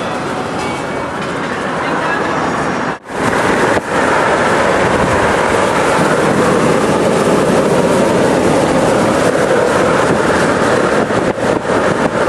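Steady rumbling, rushing noise from a moving vehicle, with a sudden brief break about three seconds in.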